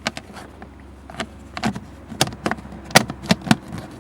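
Irregular sharp clicks and knocks, about eight or nine of them, from hands handling parts and tools in a car's footwell as the trim under the dashboard is put back.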